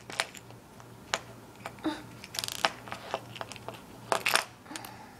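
Small plastic toys and accessories being handled on a wooden floor: irregular clicks and taps with light rustling, a cluster of louder clicks near the middle and another near the end.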